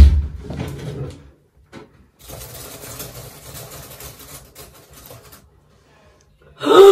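A thump at the start as a laptop is handled on a desk, then about three seconds of rapid clicking of laptop keys. A brief loud vocal exclamation near the end.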